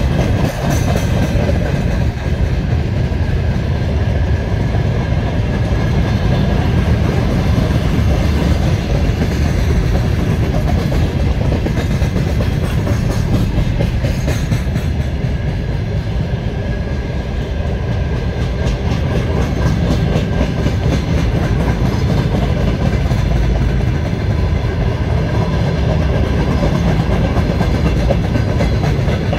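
A freight train's wagons rolling past, a steady heavy rumble of steel wheels on the rails with faint regular clicks.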